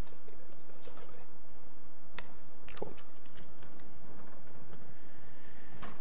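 Laptop keyboard keystrokes: a handful of irregular, sharp clicks, with a cluster in the middle and one more just before the end.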